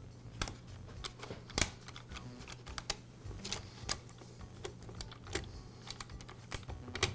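Steel saw chain of a Black and Decker cordless lopper clinking and rattling as it is handled and worked off the guide bar: irregular light metallic clicks, the loudest about a second and a half in.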